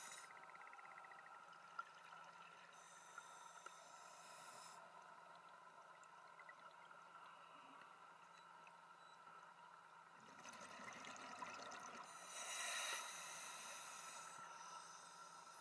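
Scuba diver's regulator exhaust bubbles heard underwater: surges of bubbling hiss a few seconds in, loudest about twelve seconds in and again near the end, over a faint steady hum.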